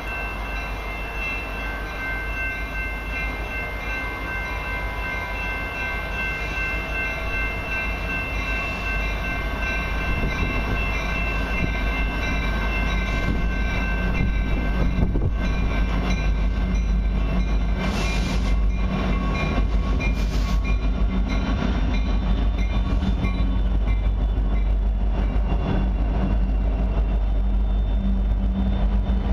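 Horn of an approaching freight train sounding a long, steady chord in the distance, which fades after about twelve seconds. The low rumble of its four diesel locomotives then grows steadily louder as the lead units draw up alongside.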